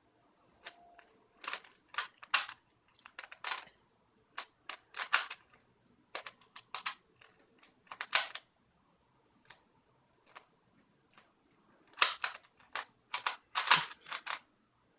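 A Rubik's cube being turned fast by hand: irregular bursts of plastic clacking as the layers snap round, with short pauses between runs of turns. The cube is a poor one whose mechanism turns roughly and audibly.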